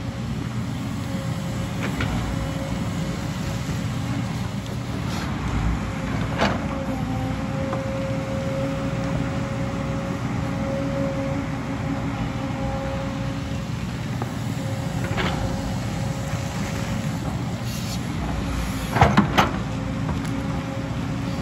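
JCB tracked excavator's diesel engine running steadily under digging load, with a steady hum. A few sharp knocks of the steel bucket against rock, the loudest three in quick succession near the end.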